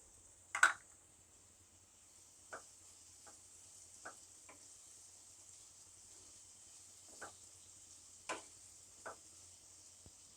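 Onions and green chillies frying in oil in a pan, a faint steady sizzle, with a spatula knocking and scraping the pan about eight times; the loudest stroke comes about half a second in.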